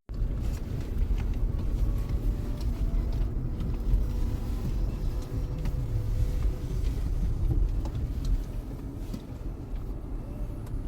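Car driving, a steady low engine and road rumble.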